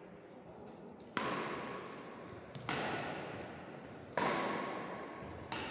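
Badminton racket strings striking a shuttlecock in a rally: four sharp hits about a second and a half apart, each echoing on in the big hall.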